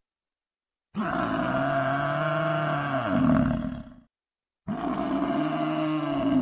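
A deep animal bellow, heard twice, each call about three seconds long and starting abruptly; the first drops in pitch near its end.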